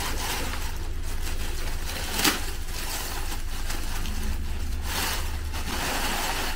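Clear plastic bag crinkling and rustling as a nylon vest is pulled out of it, with a sharper crackle about two seconds in.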